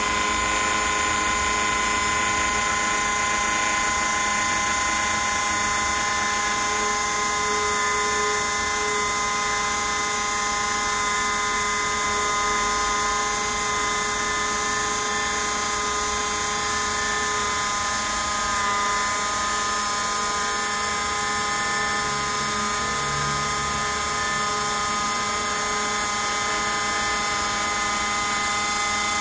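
Small CNC router spindle whining steadily as its bit carves a white foam block. A few fainter tones come and go beneath the steady whine.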